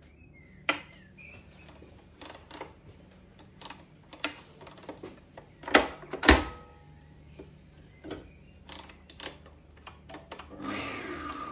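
Kenwood Chef stand mixer whipping double cream: a faint steady motor hum with irregular clicks and knocks, two of them loud about six seconds in. Near the end the motor gets louder and rises in pitch as it speeds up.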